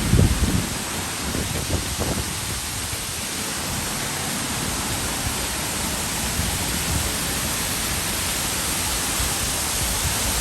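Artificial waterfall pouring: a steady, even rush of falling water.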